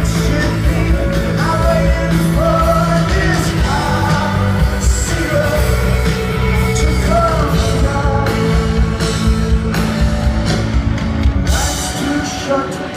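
Rock band playing live with a male lead singer, over drums and bass. Near the end the bass and drums drop away and the music gets quieter.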